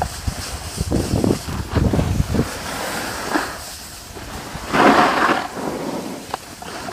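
Wind buffeting the microphone of a camera carried down a snowboard run, mixed with the rush of a board sliding and scraping over snow; the noise swells loudest about five seconds in.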